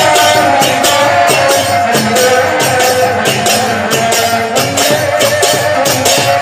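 Kirtan ensemble playing with no singing: hand cymbals struck in a fast, even rhythm, several strikes a second, over a drum and steady held instrument tones.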